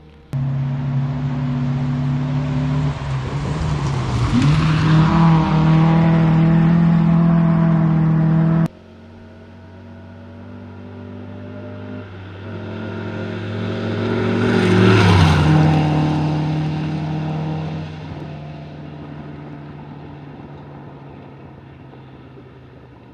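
A rally car's engine running hard at high revs, its pitch briefly dipping and climbing again about four seconds in, until it cuts off abruptly. Then a rally car approaches and passes at speed, its engine note dropping as it goes by, and fades into the distance.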